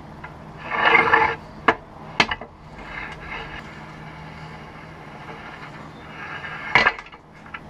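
Arbor press forcing the old front main seal out of a 24-valve Cummins timing cover: a creaking burst about a second in and a weaker one around three seconds, with sharp metal clicks and knocks between them and a loud knock near the end.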